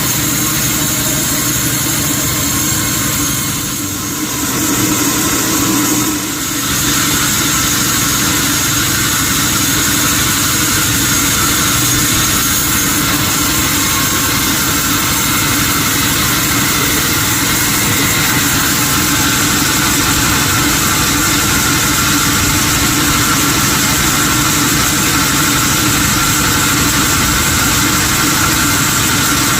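Sawmill machinery running steadily: a continuous engine-like drone with a steady high whine over it, dipping briefly about four to six seconds in.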